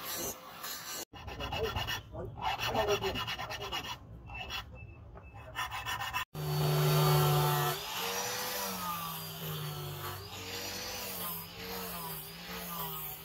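A hand file rasping in repeated strokes along the edge of a steel knife blade. Then an angle grinder with a flap disc runs against the blade: its motor whine starts loud, rises, then wavers up and down as it is pressed into the steel.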